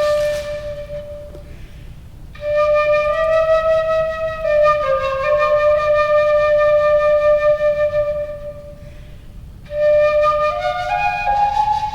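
Japanese bamboo flute playing a slow, held-note melody in three phrases, with short pauses between them and a breathy rush at the start.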